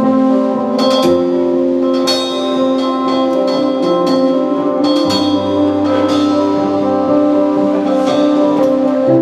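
Instrumental music from a band's song: sustained keyboard-like chords with bell-like notes and a percussion hit about every second, without singing.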